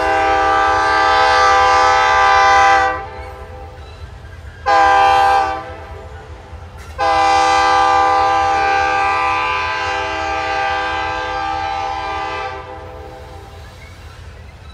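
Freight locomotive's air horn sounding a chord in three blasts: a long blast that stops about three seconds in, a short blast around five seconds, then a long blast of about five seconds that ends near the end. Under it, a steady low rumble of the tank-car train rolling by.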